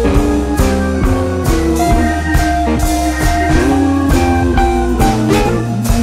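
Background music: guitar-led rock with a drum kit keeping a steady beat.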